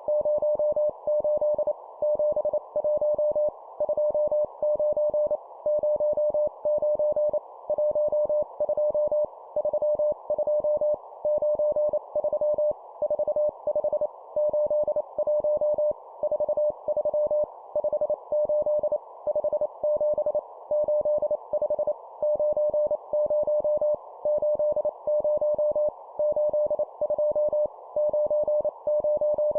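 Morse code sent at 25 words per minute as a single steady tone keyed on and off, in groups of two-digit numbers with short pauses between groups, over a soft hiss.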